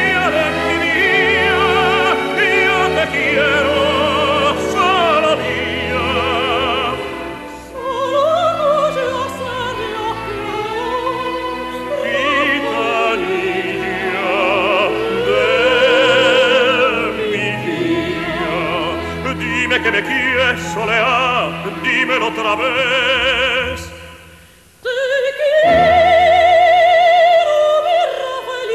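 Soprano and tenor singing an operatic zarzuela duet with orchestra, their voices carrying wide vibrato. Near the end the music drops away for a moment, then the singing resumes.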